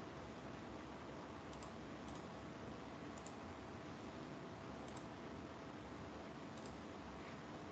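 About five faint, irregularly spaced clicks, like the clicks of someone working a computer, over a steady microphone hiss.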